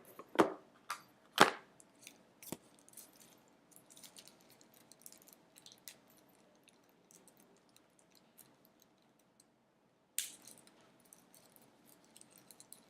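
Unboxed camera accessories and packaging being handled by hand. A few sharp knocks come in the first couple of seconds, the loudest about a second and a half in. Light clicks and rustling follow, then a short crinkle about ten seconds in.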